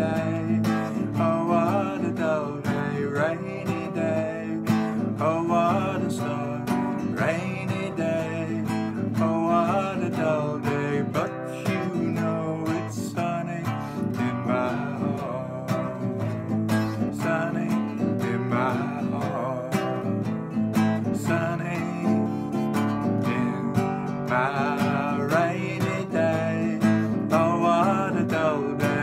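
Acoustic guitar strummed in chords, with a man singing along at times.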